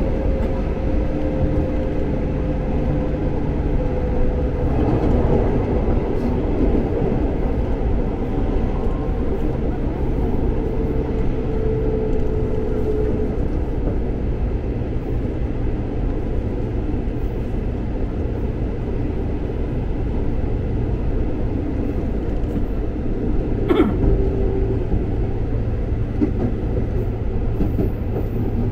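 Electric commuter train running: a steady rumble with a faint whine that drifts slightly in pitch, and one sharp knock about 24 seconds in.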